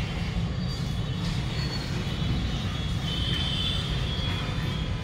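Steady low rumble of city traffic, with a few brief high tones about half a second in, at one second and around three and a half seconds.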